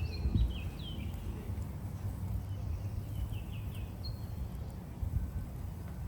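Birds chirping outdoors in short quick runs of falling notes, near the start and again about three seconds in, with a brief high whistle a little later, over a steady low rumble.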